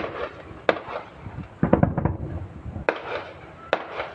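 Aerial fireworks shells bursting in a string of sharp bangs, about one every second, with a quick cluster of several bangs near the middle.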